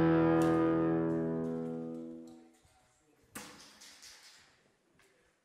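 Background music, a guitar chord held and fading out over about two and a half seconds. A short faint knock follows about three and a half seconds in, then a few soft noises.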